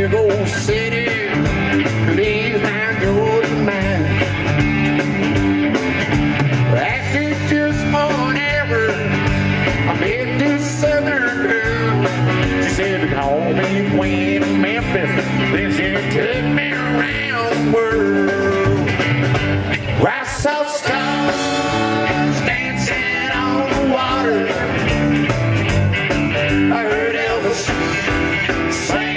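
Live country-rock band playing loudly, with electric guitars, drums and keyboards, and a brief break in the bass and drums about twenty seconds in.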